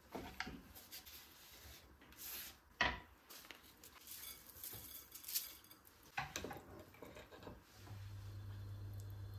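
Small handling sounds: light rubbing and a few soft knocks and clicks, the sharpest about three seconds in and again about six seconds in. A steady low hum starts near the end.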